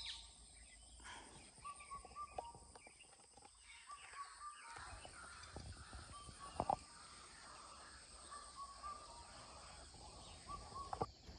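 Faint morning forest ambience with a bird repeating a short call of a few quick notes every couple of seconds. A sharp click sounds about two-thirds of the way through.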